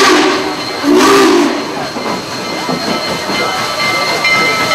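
Union Pacific 844's steam whistle giving two short blasts, the second about a second after the first, as the 4-8-4 steam locomotive approaches at walking pace. After them comes the lower noise of the locomotive drawing in.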